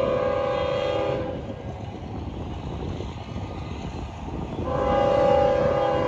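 CSX freight locomotive's multi-chime air horn sounding for a grade crossing: one long blast ends about a second in, and after a pause of about three and a half seconds another long blast begins.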